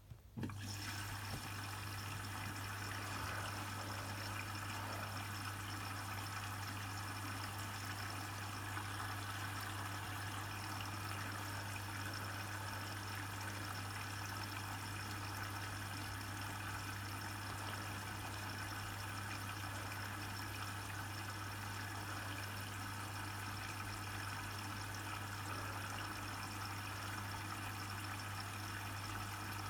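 Hotpoint WMFUG 942 washing machine starting to fill: the water inlet valve opens suddenly about half a second in and water runs in steadily, with a steady low hum under the rush of water.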